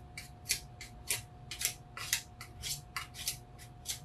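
A 4-inch metal joint knife scraping over chalk paint on a dresser drawer front, smoothing it so no drag marks are left. Short, quick strokes, about two or three a second.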